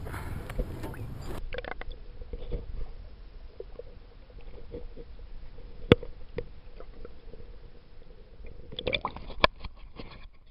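Low rumble of water and wind for about the first second, then muffled underwater sound: scattered clicks and knocks over a faint steady hum, with one sharp click about six seconds in and a quick cluster of clicks near the end.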